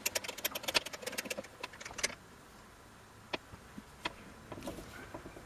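Light metal clicking and clattering from tightening a lathe's quick-change tool post nut with a wrench, with the boring bar in its holder. A quick run of small clicks over the first two seconds, then a few single clicks near the end; the lathe is not running.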